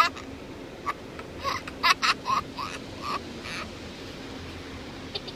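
Young children's short, high-pitched squeals and giggles, several in quick succession in the first three seconds, over a steady low hum.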